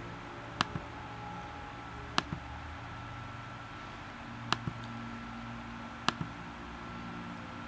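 Computer mouse clicked four times, each a sharp click followed a moment later by a softer one as the button is pressed and released, over a low steady hum.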